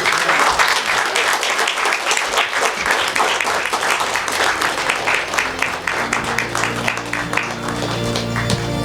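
Audience applauding, the clapping thinning out toward the end. Instrumental music with sustained chords comes in about six seconds in.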